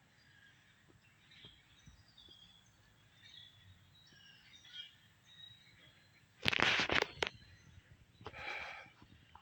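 Small birds chirping faintly and intermittently in the woods. About six and a half seconds in comes a loud rustling crunch lasting about a second, with a few sharp clicks, and another shorter rustle a little after eight seconds.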